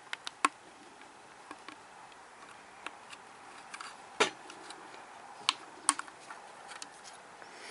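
Plastic clicks and taps as the snap-fit rear cover of a Ubiquiti NanoBeam antenna feed is handled and prised open: a scattering of separate sharp clicks with quiet between, the loudest about half a second in and just after four seconds.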